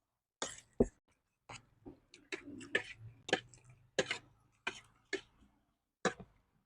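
A string of short, irregular clicks and sharp sniffing breaths from people eating very spicy food, with a faint low hum in the middle.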